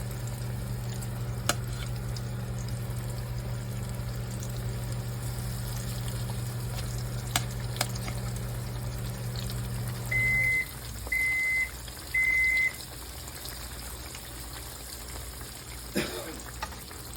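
Breaded cubed steaks sizzling in hot frying oil in a skillet. A steady low appliance hum stops about ten seconds in, and an electronic beeper sounds three short, equal, high beeps.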